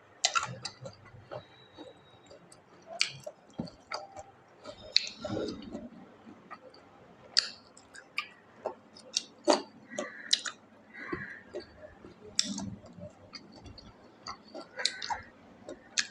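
Close-miked chewing and eating of a mukbang meal: irregular wet mouth clicks, lip smacks and short crunches.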